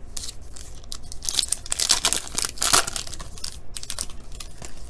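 Foil wrapper of a Panini Court Kings basketball card pack being torn open and crinkled by hand: a run of crackly tearing and rustling, loudest around the middle.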